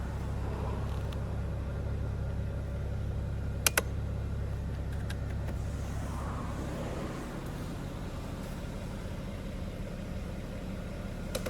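A steady low machine hum, like a running engine, that drops a little about seven seconds in, with a sharp double click about four seconds in and a single click near the end.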